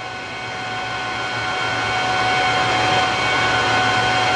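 Steady whir of rack-mounted equipment cooling fans with a thin steady whine over it, growing louder over the first few seconds.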